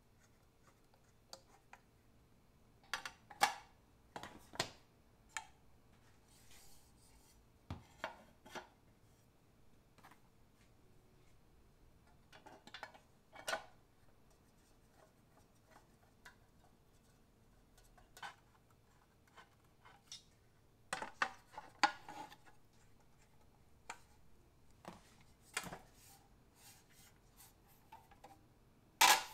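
Scattered clicks, knocks and light scrapes of hard panels and end pieces being handled, screwed and fitted together on a wooden workbench. There are small clusters of taps throughout, and the sharpest knock comes near the end.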